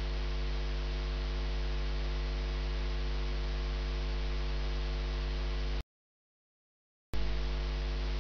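Steady electrical mains hum with a buzzy stack of overtones and a background hiss, from the recording chain rather than any scene source. Near the end it cuts to dead silence for about a second, then comes back unchanged.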